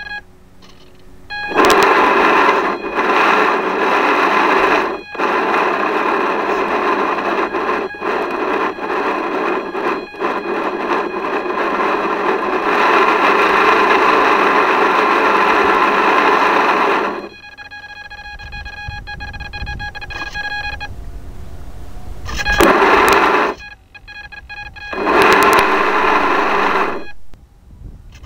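Small electric motor's harsh buzz with a steady high whine, as from a model boat carrying a camera at water level. It cuts in after about a second and a half and runs for some fifteen seconds, drops to a low rumble, then comes back in two short bursts near the end.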